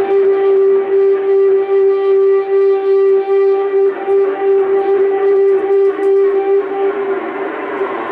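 Electronic noise music from a tabletop rig of effects pedals patched together with cables: one loud, steady droning tone with overtones, fluttering rapidly in loudness over a dense distorted haze.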